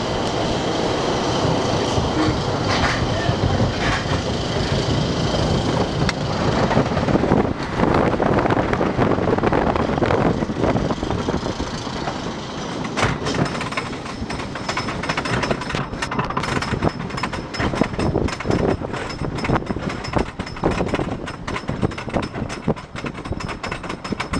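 Wooden roller coaster train rolling out onto the chain lift hill and climbing it, heard from the front seat: a rumbling roll at first, then from about halfway a rapid, steady clatter of clicks from the lift chain and anti-rollback ratchet.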